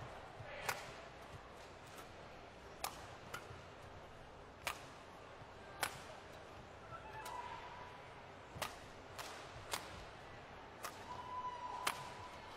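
Badminton rally: about ten sharp racket strikes on the shuttlecock, roughly one a second, traded between two players. Two short squeaks of shoes on the court floor come about halfway through and near the end.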